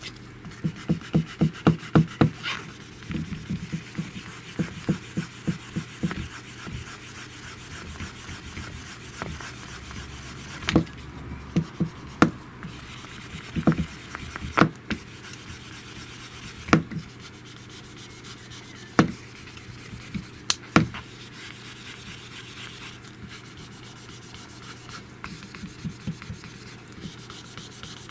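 Rubbing and pressing over the Samsung Z Flip 3's screen protector to work out trapped air bubbles. A quick run of taps comes in the first few seconds, and single sharp clicks follow now and then through the middle.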